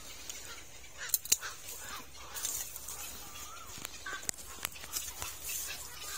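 Twigs and branches snapping and crackling as thorny scrub is cut back, a handful of sharp cracks about a second apart at times. A bird gives a few short wavy calls between them.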